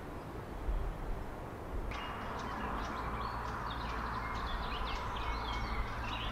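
Outdoor birdsong: several wild birds chirping and whistling in quick, overlapping phrases that start abruptly about two seconds in, over a steady low rumble.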